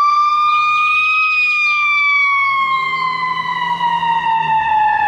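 Ambulance siren in a slow wail: one long tone that rises slightly for about a second, then falls slowly.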